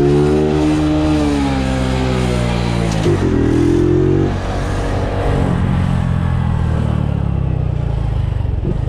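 Motorcycle engine running under way, its note rising and falling, then dropping to a lower, rougher note about four seconds in.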